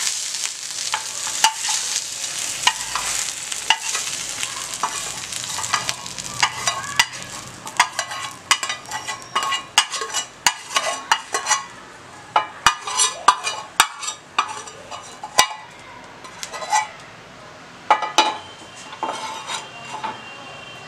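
Metal spatula scraping and tapping against a kadai as fried onion pieces are scooped out. Hot oil sizzles at first and fades over the first several seconds, then quick taps and clinks come in clusters.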